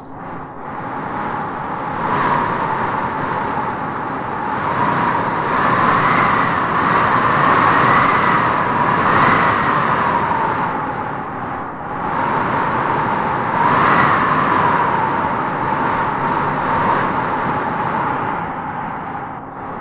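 Wind howling in gusts: a steady rush with a hollow, whistling moan that swells and fades, rising to its strongest a third of the way in and again past the middle.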